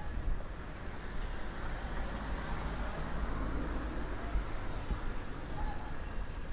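Road traffic on a city street: cars passing with a steady rumble of engines and tyres, swelling as a vehicle goes by in the middle.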